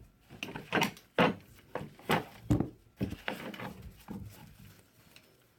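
Synthetic winch rope being pulled by hand through a loose knot: a quick series of short scrapes and knocks, about two a second, as the rope slides and bumps against the winch.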